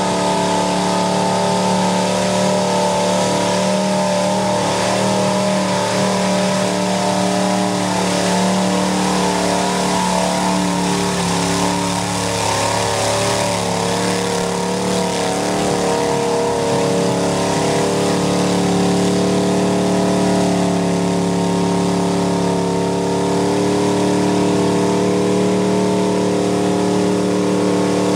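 Mud bog truck's engine held at high revs as the truck churns through deep mud, its pitch wavering a little and sagging slightly partway through before steadying again.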